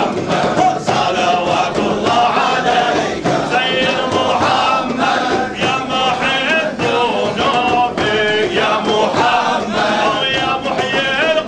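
A crowd of men chanting a Sufi dhikr together, their many voices singing loud, repeated phrases in unison.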